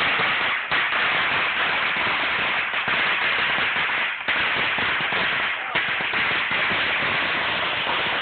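A huge string of firecrackers going off in a dense, unbroken crackle, with brief dips in level near the start and about four and six seconds in.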